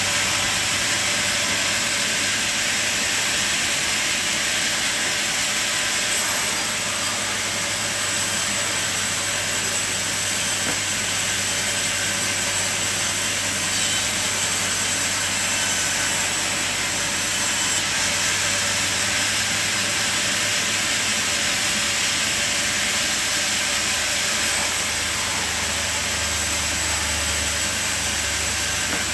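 Sawmill running steadily: a constant machine hum under a loud, even hiss of the saw cutting timber, without a break.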